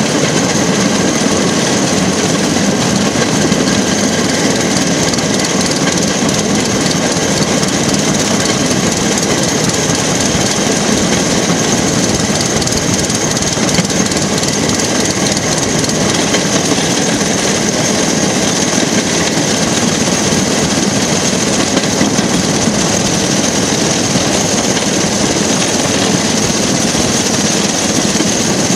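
Rail track car (jigger) running along the rails at a steady pace: the steady noise of its engine mixed with its wheels rolling on the track.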